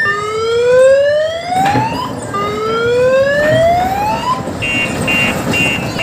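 Electronic siren on an odong-odong mini tour train: two rising wails of about two seconds each, then a high pulsing tone that repeats about twice a second.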